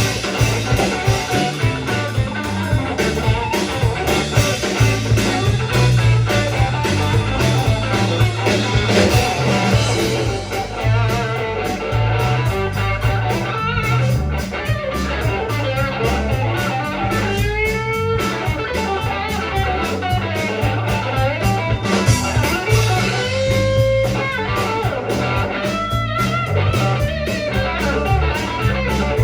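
Blues-rock band music: a lead electric guitar plays over bass and drum kit, bending notes a few times around the middle and later on.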